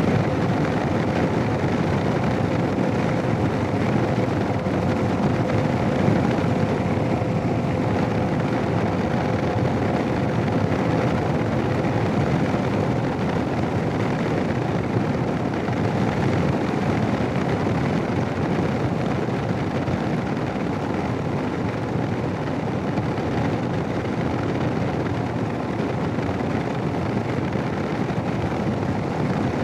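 Steady rush of wind and motorcycle running noise from a Royal Enfield Himalayan on the move, picked up through a Sena 10C helmet intercom microphone. A faint steady hum sits under it for the first dozen seconds or so.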